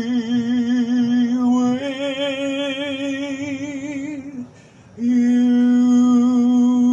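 A man singing a love song unaccompanied, holding its closing words in long notes with vibrato. The note steps up about two seconds in, breaks off at about four and a half seconds, and a new long held note begins about five seconds in.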